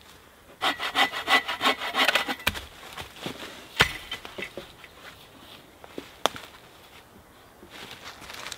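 Hand saw cutting through a wooden pole in quick back-and-forth strokes for about two seconds, followed by one sharp crack and a few light knocks.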